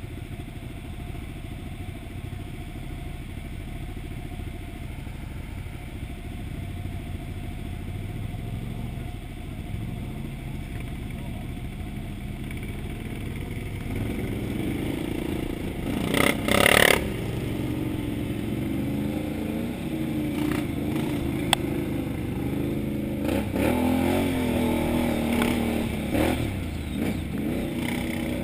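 Can-Am Outlander XMR 1000R ATV's V-twin engine running at low trail speed in mud, its pitch rising and falling with throttle more often from about halfway. A loud burst of noise lasting about a second just past the middle, and a sharp click a few seconds later.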